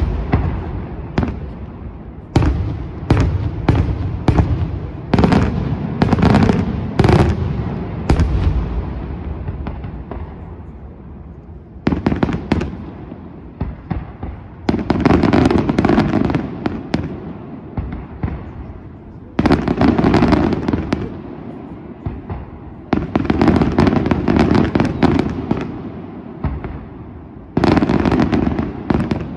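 Daytime fireworks going off: a quick string of sharp bangs for the first eight seconds or so, then several dense flurries of rapid bangs and pops a few seconds apart, each lasting one to three seconds.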